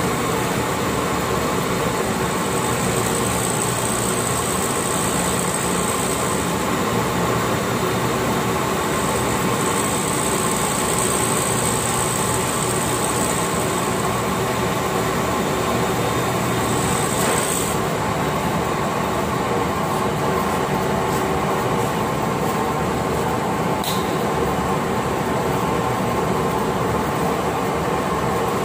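Glass-processing machinery running with a loud, steady mechanical hum. A high whine comes and goes several times in the first half, and a few sharp clicks sound later on.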